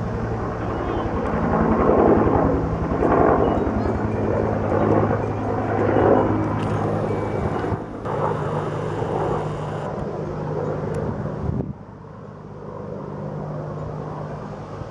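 Bell UH-1 'Huey' helicopter flying overhead: the main rotor beating in fast, even pulses over a steady engine hum. The sound drops suddenly in level about twelve seconds in and carries on more quietly.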